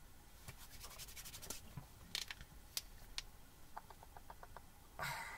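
A deck of playing cards being handled, faint: a quick run of light flicking clicks, a few separate clicks, then a shorter run of small even ticks, with a short rustle near the end.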